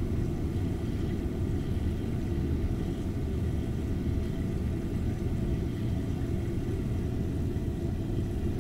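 Steady low rumble, an even drone with no distinct events.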